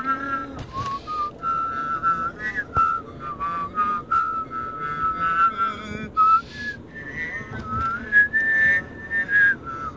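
A person whistling a tune by mouth, the notes held and sliding from one to the next, the melody climbing higher about three-quarters of the way through. Steady low road noise sits underneath.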